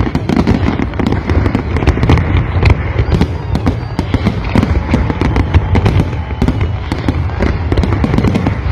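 Large fireworks display in a dense, continuous barrage: many bangs and crackles a second, some sharper and louder than others, over a steady low rumble.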